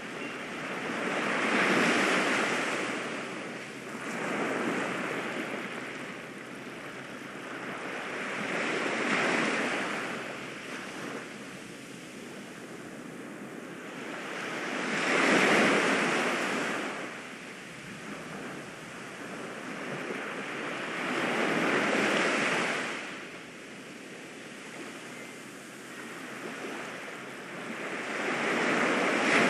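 Ocean waves washing onto a shore, a surge of surf every five to seven seconds with a softer hiss between.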